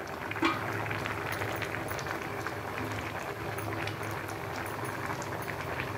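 Shrimp and greens curry boiling in a wide pan: steady bubbling with small pops, and a short soft knock about half a second in.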